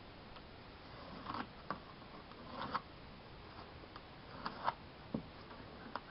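A pencil scratching on plywood along a two-by-four straightedge while a line is marked, with several short scrapes and light clicks spread through.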